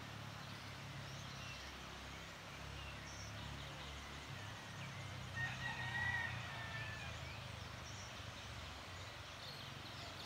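A rooster crowing once, about five and a half to seven seconds in, over scattered faint bird calls and a steady low background rumble.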